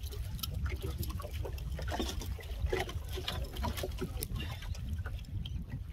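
Water lapping and splashing against a small boat, with irregular light clicks and splashes over a steady low rumble of wind on the microphone.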